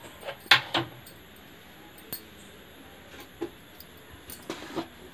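Light metal clinks and knocks of cookware being handled, two close together about half a second in, then a few faint ones over low room noise.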